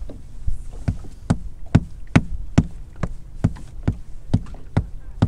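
Steady tapping knocks on the boat's hull, a little over two a second. It is done on purpose to draw white bass (sand bass) under the boat and keep them in a feeding frenzy.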